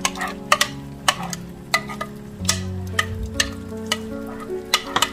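Ground onion paste being scraped out of a bowl with a spoon into hot oil in a nonstick pan, the spoon knocking sharply against the bowl about eight times over a light sizzle of the oil.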